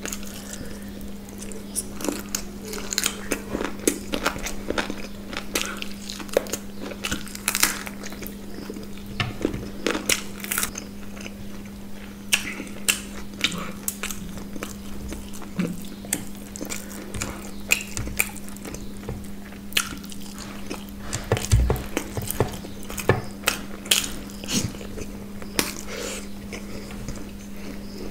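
Close-miked eating sounds: biting and chewing, with a rapid run of wet mouth clicks and smacks, over a steady low hum.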